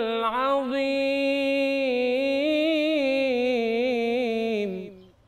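A solo male munshid singing an unaccompanied Islamic ibtihal (supplication). He runs through a quick ornamented turn, then holds one long note with a slight waver, and it fades out just before the end.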